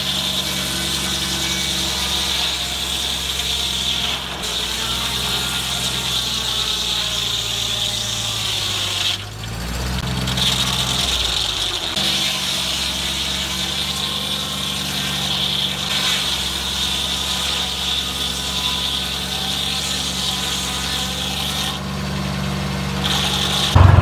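Foley Belsaw M-14 circle sawmill blade cutting through a log of Osage orange (bois d'arc), a very hard, dense wood. The mill's engine runs steadily under a high-pitched cutting whine, which breaks off for about a second around nine seconds in and then resumes.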